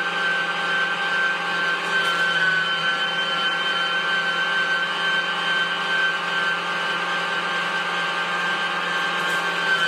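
Electric meat grinder running steadily with a constant motor whine, grinding cooked liver for pâté a second time.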